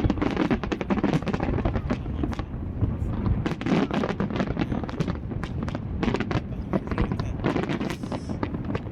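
Aerial fireworks going off in a dense, irregular stream of bangs and crackles, several each second, over a low rumble.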